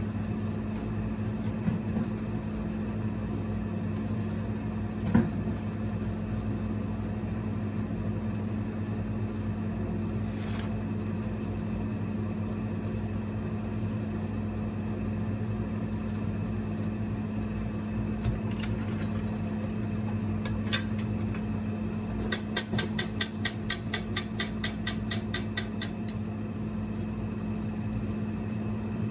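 A steady low electrical hum. Near the end comes a quick run of about a dozen sharp ticks, roughly four a second, with a few single knocks earlier on.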